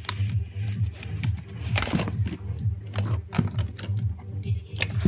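Plastic action figure and foam packing peanuts handled in a cardboard box: scattered light clicks and a brief rustle about two seconds in, over a low, steadily pulsing hum.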